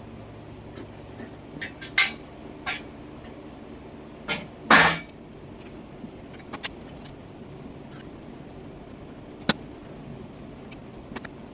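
A series of sharp metallic knocks and clanks from handling work at a portable bandsaw mill, the loudest and longest about five seconds in. A low steady hum underneath stops about four and a half seconds in.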